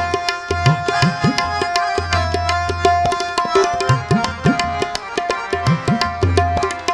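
Tabla playing a busy rhythm, the bass drum's strokes bending upward in pitch, under a harmonium holding and stepping between notes. This is an instrumental interlude between sung lines of Gurbani kirtan.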